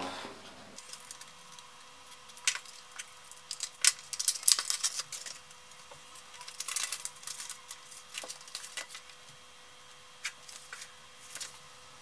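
Light handling noises: scattered clicks and crinkly rustles of paper and plastic packaging being handled, in short uneven bursts, busiest a third of the way in.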